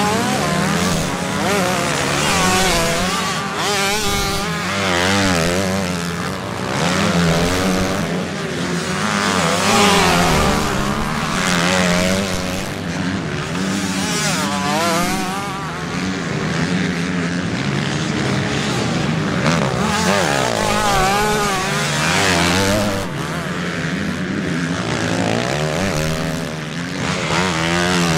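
Several motocross bikes racing through a dirt corner, their engines revving up and down over and over as riders throttle and shift, with overlapping engines rising and falling in pitch.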